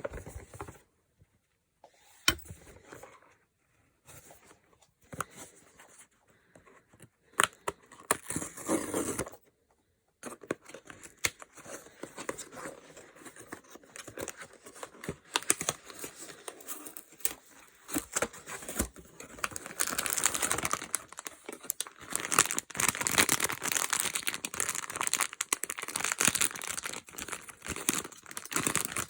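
Blind box packaging being handled and opened: scattered taps and rustles at first, then steady crinkling and tearing of the wrapper, getting louder in the second half.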